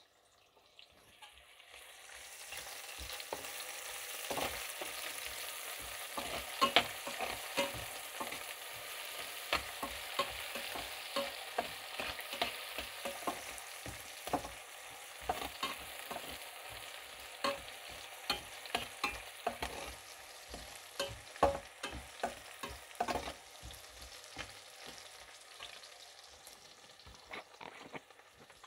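Chopped onion sizzling in hot fat in a stainless steel frying pan, stirred with a metal slotted spatula that clicks and scrapes against the pan many times. The sizzle builds over the first few seconds and eases off near the end.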